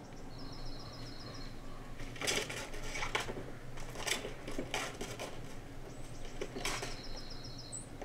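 Fox squirrel scrabbling on a swinging wooden and plastic cutting-board feeder shield: a series of knocks and rattles from about two seconds in to about seven. A bird's short, evenly spaced trill sounds near the start and again near the end.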